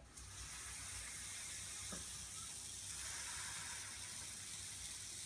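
Pancake batter sizzling as it is poured onto a hot pan: a steady hiss that starts suddenly as the batter goes on.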